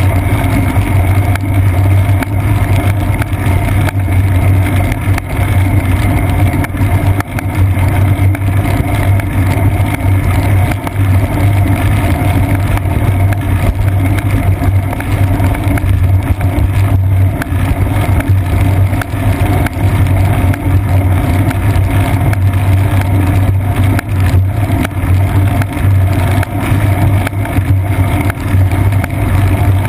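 Steady low drone and rattle of a bicycle rolling over wet pavement, picked up as vibration through a seat-post-mounted GoPro Hero 2 camera, with a strong low hum that holds throughout.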